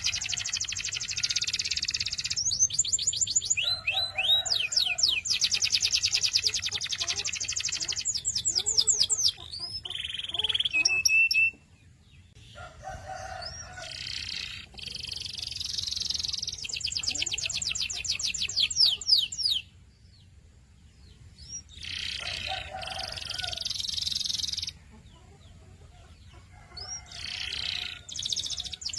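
Domestic canary singing: fast rolls and trills of rapidly repeated high notes, in long phrases broken by a few short pauses.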